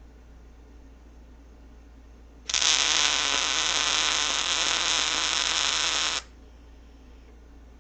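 MIG welder laying a short weld: a steady hiss that starts abruptly about two and a half seconds in and cuts off sharply under four seconds later. The welder remarks that there is too much speed, taken to mean the wire feed is set too fast.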